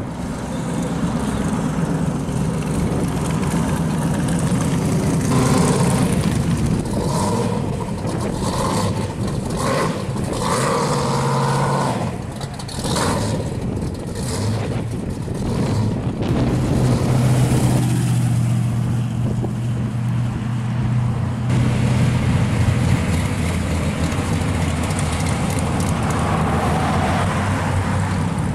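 Hot rod and muscle car engines, among them a supercharged Camaro's, running as the cars drive past one after another, with revs rising and falling. A steady deep exhaust drone stands out near the middle.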